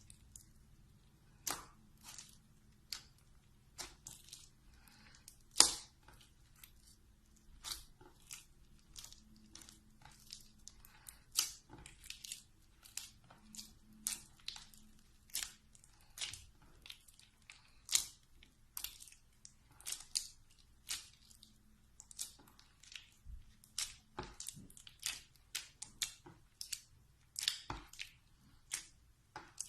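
Slime being handled and squished, giving irregular short wet clicks and crackles, a few to several a second, with a sharper pop about five seconds in.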